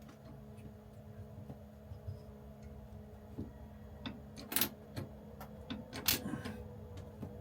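Scattered light clicks and clacks of a hand rivet tool and small parts being handled, with two louder sharp clacks about halfway through and again a second and a half later, over a steady low hum.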